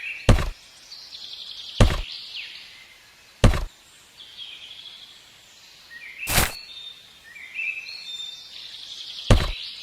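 Small birds chirping, with five sharp knocks at uneven intervals, the loudest about a third of a second and a second and a half in, and another near the end.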